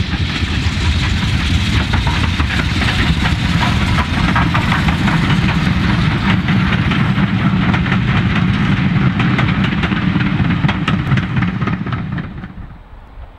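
Steam-hauled passenger train passing close by, its coach wheels rumbling and clicking over the rail joints in a steady clatter. The sound drops away sharply about twelve seconds in.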